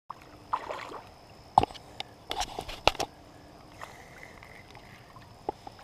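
Sharp clicks and knocks of a spinning reel and rod being handled while a small hooked bass splashes at the water's surface, loudest about one and a half to three seconds in.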